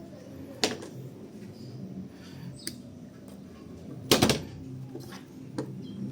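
Knocks and clicks of hands handling plastic parts while the pressure-switch hose is fitted on a washing machine. There are four of them, the loudest a double knock about four seconds in, over a low steady hum.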